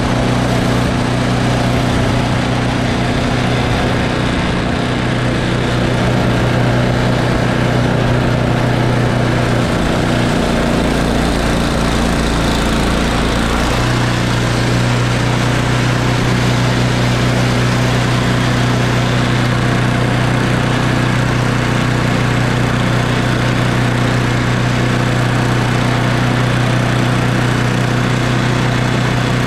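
Snowblower's small gas engine running steadily, its low hum changing for a few seconds about ten seconds in before settling back.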